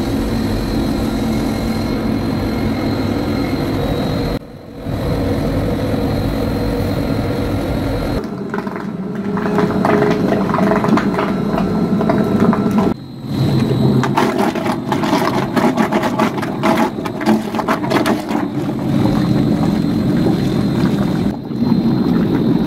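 Paint mixer running, its spinning shaft churning thick white distemper in a drum: a steady motor hum that turns rougher and more crackly after about eight seconds, with brief dropouts a couple of times.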